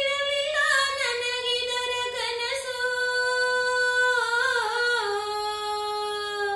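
A woman singing a Kannada bhavageete alone, without accompaniment. A slow line with small slides between notes settles into one long held note over the second half and stops near the end.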